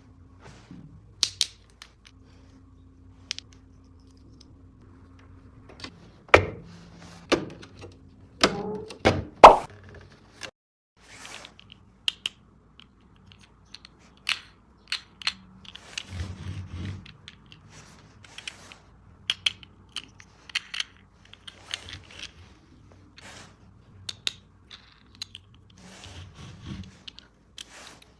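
Hard plastic toy track parts being handled: scattered clicks and knocks, with a cluster of louder clatters about six to ten seconds in.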